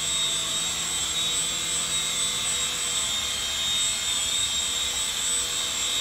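Syma S200 mini RC helicopter flying, its small electric rotor motors giving off a steady high-pitched whine.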